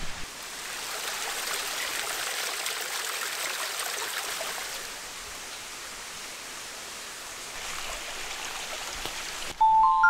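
Steady forest ambience, an even rushing hiss like running water, a little louder in the first few seconds. A chime rings in with several clear tones just before the end.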